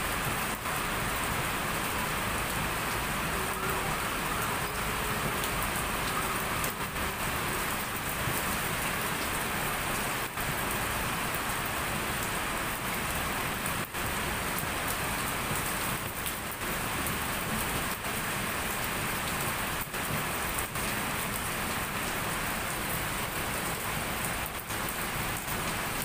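Heavy rain pouring down, a steady, even hiss of falling rain.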